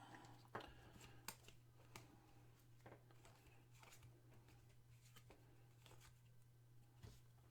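Near silence: a steady low hum, with a few faint soft ticks and rustles of trading cards being handled and slid through a pack.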